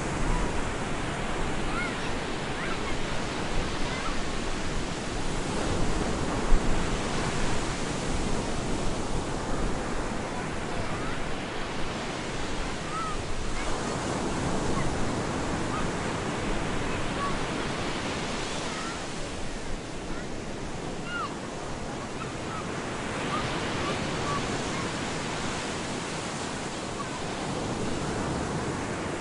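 Stormy surf breaking and washing on a beach, a steady rush of water that swells and eases every several seconds, with wind.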